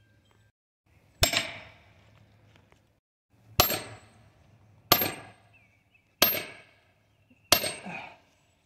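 Five sharp blows of a hand striking tool on wood, each with a brief metallic ring; after the first, the rest come steadily about a second and a quarter apart.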